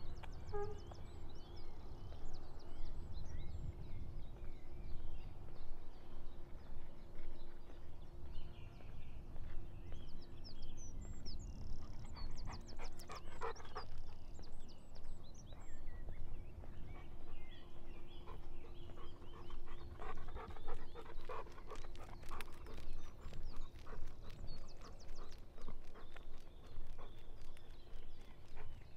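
Golden retriever panting in quick breaths, loudest in two spells near the middle and about three-quarters of the way through, with birds singing.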